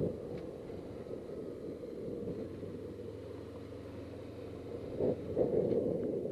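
Suzuki GS500E parallel-twin engine running at low revs under a low wind rumble in the helmet, as the motorcycle rolls slowly. The rumble swells briefly about five seconds in.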